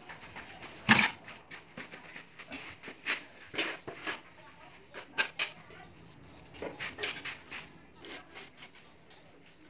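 Short scrapes and knocks of hand work on a tiled floor and a fresh mortar bed, scattered irregularly, with one loud knock about a second in.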